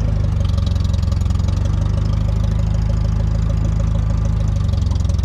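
Allis-Chalmers Model D road grader's engine idling steadily.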